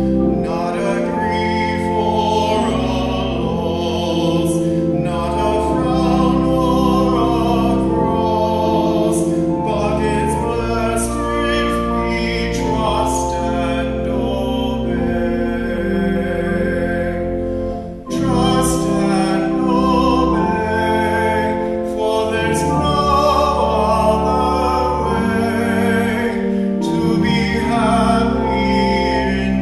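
A solo voice singing a hymn with vibrato over pipe organ accompaniment, the organ holding long sustained chords. A brief break between phrases comes about two-thirds of the way through.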